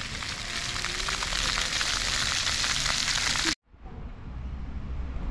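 Jets of a ground-level fountain splashing onto paving stones: a steady hiss full of fine spatter. It cuts off abruptly about three and a half seconds in, and a low rumble follows.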